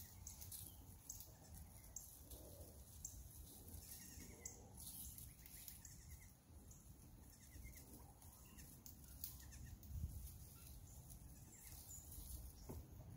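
Faint, high-pitched bleats of a young goat, a few short calls spread through a quiet outdoor background.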